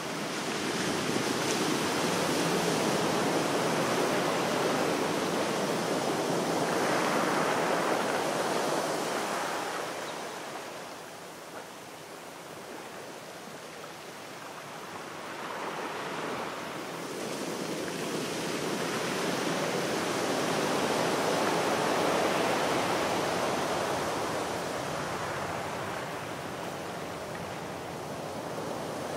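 Sea waves washing onto a shore. The rush swells for several seconds, eases off, then swells again.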